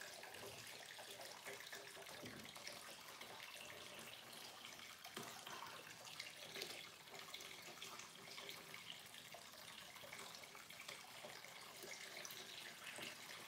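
Aquarium water running steadily into a bucket as it fills during a water change. It is a faint, even splashing trickle.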